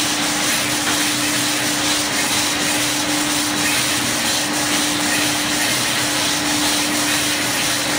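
Wooden round-rod sanding and double-end cutting machines running steadily: a constant motor hum under an even hiss.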